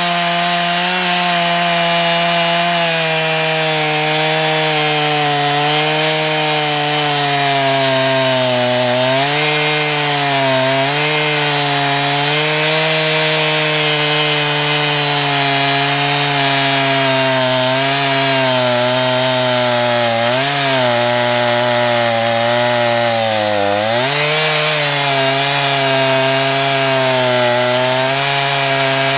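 Chainsaw running at high revs while ripping lengthwise through a log in a bar-mounted chainsaw mill. The engine pitch sags briefly a few times under load and then recovers.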